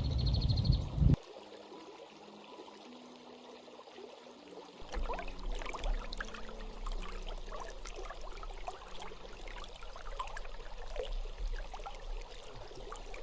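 Small stream trickling and babbling over stones, with many little splashes. A loud low noise covers the first second and then stops suddenly; the water is quieter for a few seconds, and about five seconds in the splashing grows louder and stays so.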